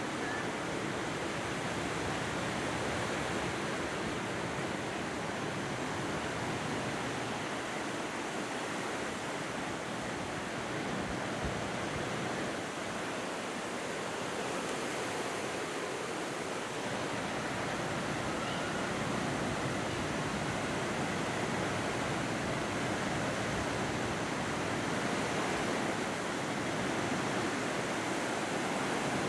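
Ocean surf washing onto a beach: a steady, even rush of waves that swells and eases only slightly.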